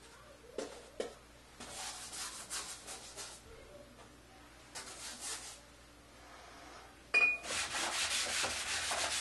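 Paintbrush scrubbing oil paint onto a stretched canvas: scratchy rubbing in short, faint patches at first. A sharp tap comes about seven seconds in, and the scrubbing after it is louder and continuous.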